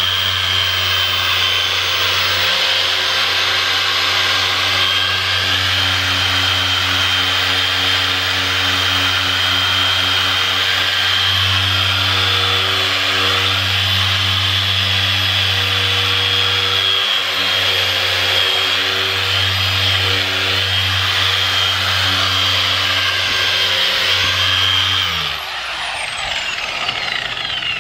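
Corded electric car polisher with a foam pad running steadily against a car's painted door panel, with a low hum and a high whine. It is switched off about 25 seconds in and winds down with a falling pitch.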